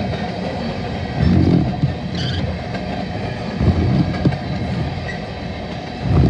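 Empty Bethgon coal gondolas rolling past, a steady low rumble of wheels on rail with heavier clunking swells about every two and a half seconds as each car's trucks go by, and a few sharp clicks between them.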